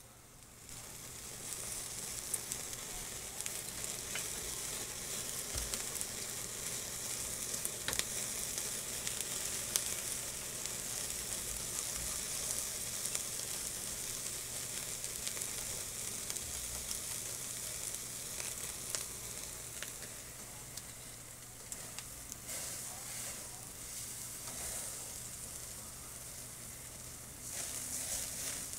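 Lobster tails sizzling on a wire grill over a charcoal fire just after liquid is poured over them, as the liquid hits the hot grill and coals. The steady hiss starts about a second in, with scattered pops and crackles, and swells again near the end.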